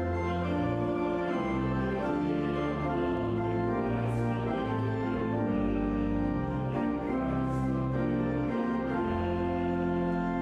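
Hymn music in a church: sustained chords moving slowly over a deep bass line.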